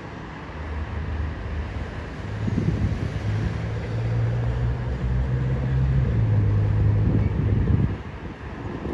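Wind buffeting the microphone: a gusty low rumble that swells about two and a half seconds in and eases off around eight seconds.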